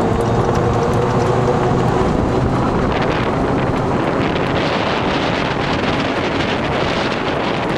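Electric golf cart with an upgraded drive motor running at speed on pavement, its motor whine steady early on. From about three seconds in, wind buffeting the microphone grows louder and covers it as the cart nears about 23 mph.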